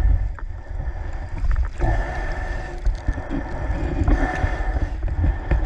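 Water sloshing and splashing around a camera held right at the river's surface as a scuba diver kicks with fins, in washes every second or two, over a low rumbling buffet on the microphone.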